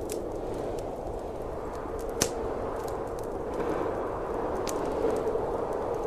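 Fireplace wood fire crackling, with scattered sharp pops over a steady rushing noise; one pop about two seconds in is the loudest.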